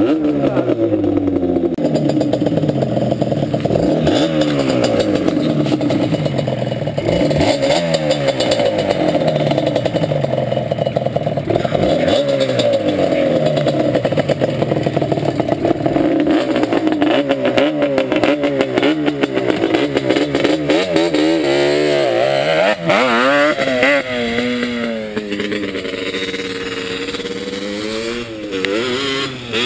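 Yamaha sport ATV engine revving as it is ridden hard, its pitch climbing and dropping again and again as the throttle is worked and gears change, with quicker wavering throttle changes in the last several seconds.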